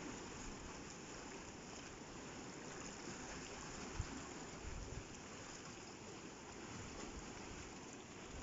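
Sea water washing and splashing steadily over coastal rocks, with a brief low bump about halfway through.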